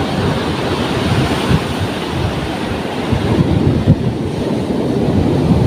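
Wind rushing over the microphone, mixed with the steady wash of heavy surf breaking on the shore.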